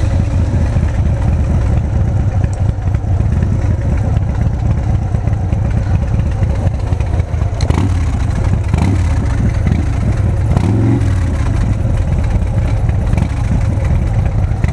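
Big Dog K9 chopper's V-twin engine running steadily at low revs while the bike rolls slowly, with a few sharp knocks or clatters about eight to eleven seconds in.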